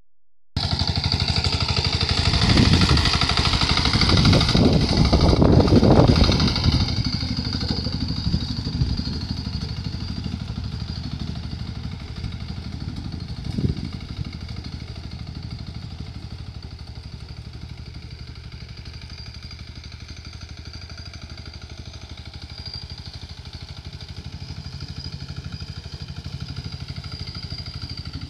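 Walk-behind hand tractor's engine running steadily under load while tilling a muddy paddy. It is loudest in the first few seconds, fades as the machine moves off, and grows a little louder again near the end, with one brief knock about halfway through.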